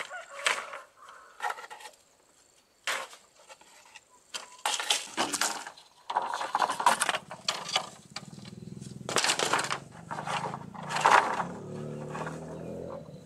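Irregular crunching and scraping knocks, as of hard material being handled or broken. A low, steady hum comes in about halfway through under the knocks.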